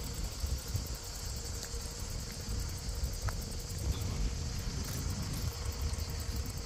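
Wind buffeting the microphone in uneven low gusts, over a steady high-pitched chorus of insects in the hillside scrub.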